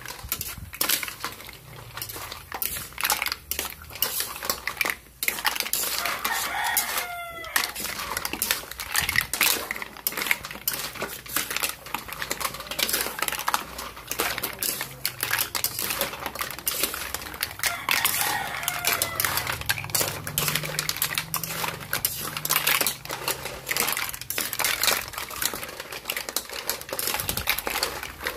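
Mussels in their shells clattering against a cooking pan as they are stirred: a dense run of sharp clicks and clinks. A rooster crows twice in the background, once near a quarter of the way in and again past the middle.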